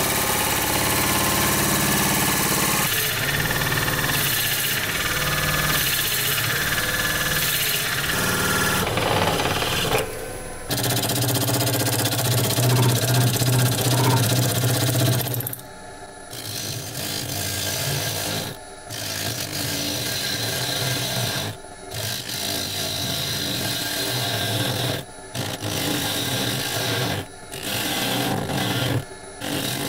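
Wood lathe turning a large tree-root blank while it is cut, with a steady noisy scraping of the tool in the wood over the lathe's hum. First a bit in the tailstock drill chuck bores into the end of the spinning wood. Then a long hand-held tool hollows out the inside. In the second half the sound cuts off and restarts abruptly several times.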